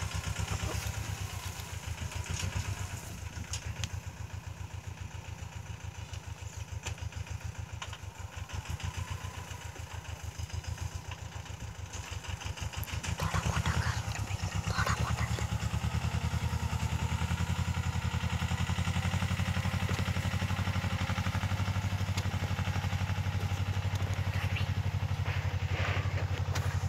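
Mahindra Jivo 245 DI compact tractor's two-cylinder diesel engine running steadily as it works the field, a fast even chugging. It grows louder about halfway through and holds there.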